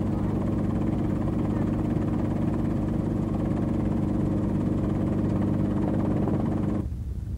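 Helicopter engine and rotor noise as heard aboard the aircraft: a steady drone with a fast low rotor beat, dropping suddenly to a quieter level near the end.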